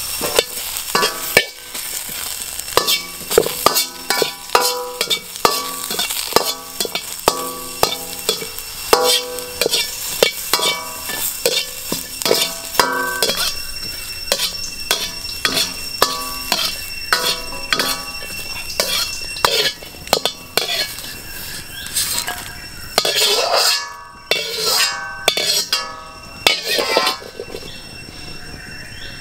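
Steel ladle repeatedly clanging and scraping against a steel wok while stir-frying lemongrass, galangal and chili, each strike leaving the wok ringing briefly, over a sizzle from the pan. The strikes come in quick irregular runs and grow sparser near the end.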